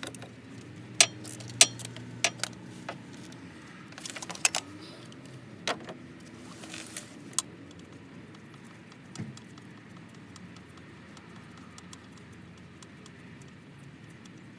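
Scattered sharp metallic clinks of a hand tool on the starter motor's mounting bolts, irregularly spaced and loudest in the first couple of seconds, stopping about halfway through. A faint low steady hum lies underneath.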